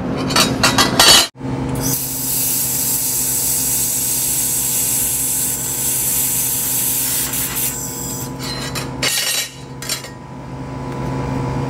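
Handheld laser welder working on stainless steel: a steady hiss for about six seconds over the steady hum of the machine, after a few sharp clicks at the start. Shorter bursts of hiss follow near the end while the hum runs on.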